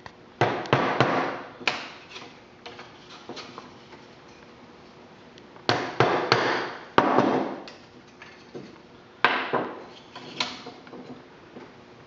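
Wooden mallet striking a 1/8-inch chisel to chop out a narrow slot in a thin wooden board. The sharp knocks come in short runs of quick blows with pauses between, then single blows near the end.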